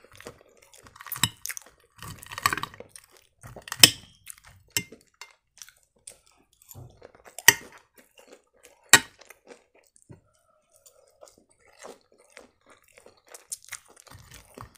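Close-up chewing of breaded fish triangles, with a fork clicking and scraping against the plate as pieces are cut off; three sharp clicks stand out.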